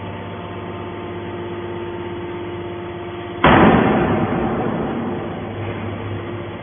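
Horizontal hydraulic metal baler running with a steady hum, then a sudden loud metallic crash about three and a half seconds in that dies away over a second or two.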